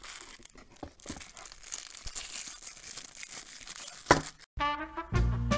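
Clear plastic sleeve crinkling and rustling as a fountain pen is handled and pulled from its gift box, with one sharp click about four seconds in. Music starts just before the end.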